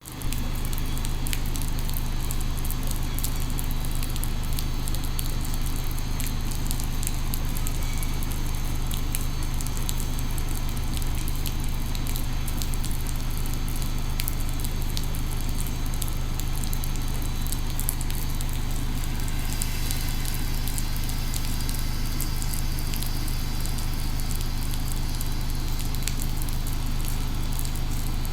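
Steady low hum of a JR Freight EH500 electric locomotive standing with its freight train, with many light crackling ticks over it. The higher hiss thickens about two-thirds of the way in.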